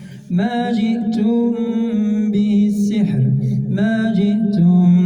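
A man reciting the Quran in a slow melodic chant, holding long drawn-out notes. The voice comes in just after a brief pause at the start.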